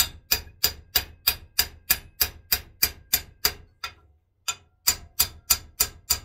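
Small hammer striking a forged strap-hinge candle holder held in a bench vise: sharp metallic strikes with a short ring, about three a second, tapping the crooked piece straight. The hammering stops for nearly a second around four seconds in, then picks up again at the same pace.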